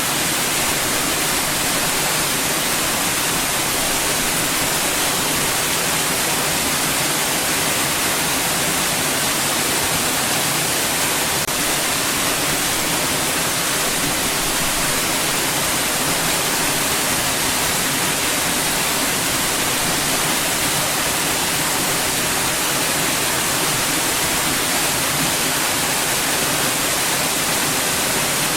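Steady white noise: an even, unbroken hiss that stays the same throughout, with a faint low hum beneath it.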